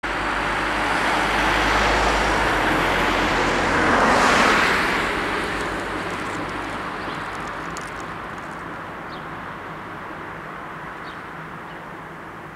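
Cars driving past over the level crossing, tyre and engine noise loudest as one passes close about four seconds in, then fading away.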